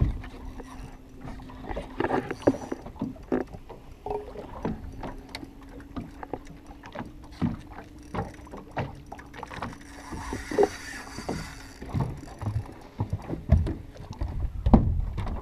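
Irregular knocks and slaps of small waves against a fiberglass skiff's hull, with a faint steady hum under them that stops about twelve seconds in.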